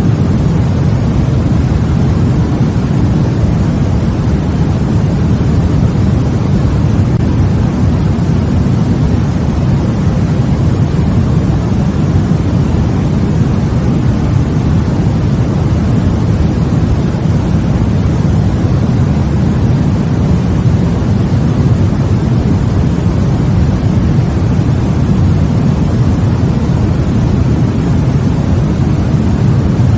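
Steady sleep-aid white noise: an even, unchanging rushing hiss, heaviest and deepest in the low end.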